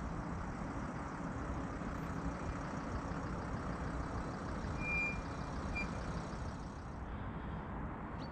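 Steady outdoor background rumble with a hiss over it, and a brief faint high chirp about five seconds in.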